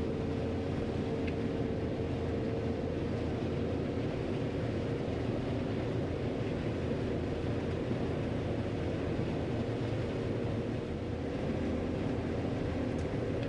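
John Deere 9500 combine running steadily while harvesting corn, heard from inside the cab: a constant engine and machinery drone with a steady hum.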